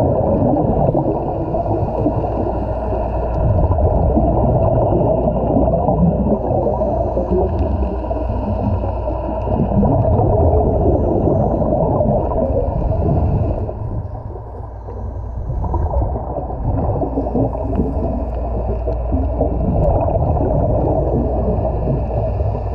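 Muffled underwater noise heard through a camera's waterproof housing: a steady low rumble and hiss of moving water. It eases off briefly about two-thirds of the way through.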